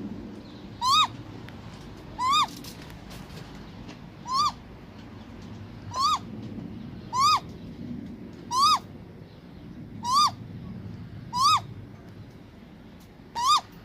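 Great grey owl calling: nine short whistled calls, each rising then falling in pitch, about one every one and a half seconds.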